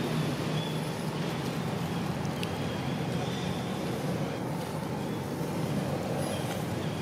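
Steady low rumble of background noise, with a few faint, short high chirps.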